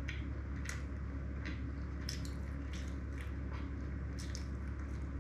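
Close-miked chewing of peinirli, a Greek cheese-filled bread: soft, moist crunches and squishes at an irregular pace of about two or three a second, over a steady low hum.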